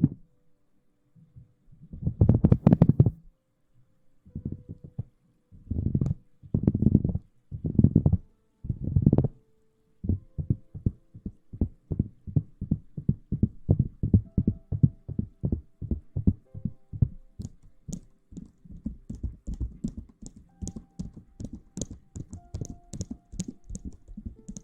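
Close-up ASMR rustling and rubbing against the microphone, heard as muffled low thumps. There are a few separate bursts in the first ten seconds, then a quick run of soft taps several times a second, with faint crackling joining in the second half.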